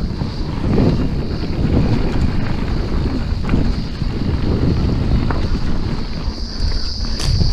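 Mountain bike, a 2019 Specialized Stumpjumper alloy 29, riding fast down a dirt trail: wind buffeting the microphone over the rumble of tyres on dirt, with a few short clattering clicks from the bike and a steady high whine.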